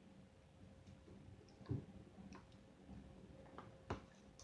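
Near silence: room tone with a faint steady hum and a few soft clicks, the clearest two about two seconds apart.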